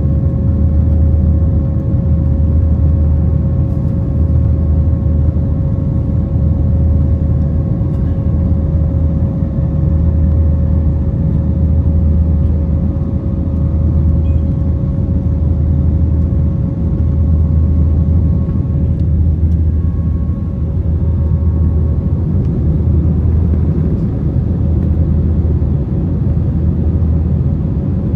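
Airbus A321 airliner cabin noise: a loud, steady rumble of engines and airflow with a constant hum running through it.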